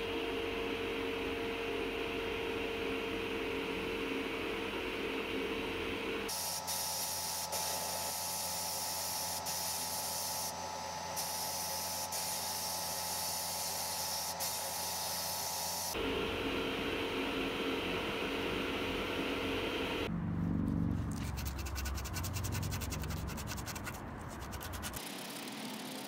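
Sandblast gun hissing steadily in a blast cabinet as it strips small metal coffee-grinder parts, the sound changing abruptly at several cuts between clips.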